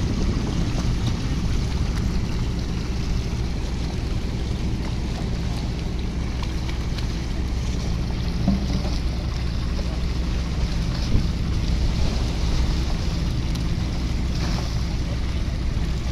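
Fishing boat's engine running steadily, a low even hum, under a hiss of wind and sea.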